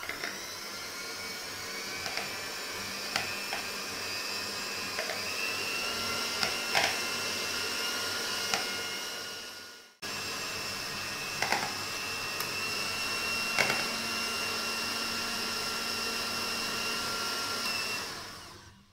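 Electric hand mixer running steadily with a whine, its beaters whipping chilled cream in a plastic bowl, with a few light clicks along the way. The sound fades out and starts again about halfway, and winds down near the end.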